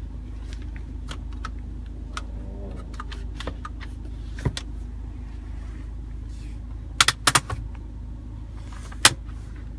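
Steady low hum inside a car cabin, with sharp plastic clicks and knocks from the centre console and hand parking brake being handled. There is a single click about four seconds in, a quick cluster of clicks around seven seconds, and one more near the end.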